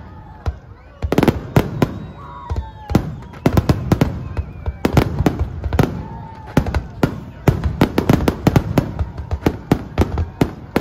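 Fireworks display: a rapid barrage of shell bursts and crackling bangs, sparse for about the first second, then coming thick and fast.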